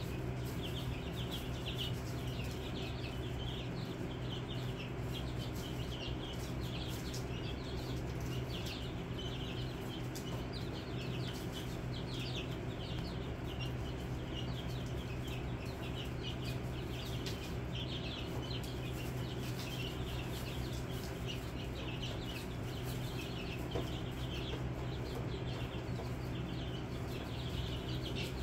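A brooder of young chicks peeping continuously, many short high peeps overlapping, over a steady low hum.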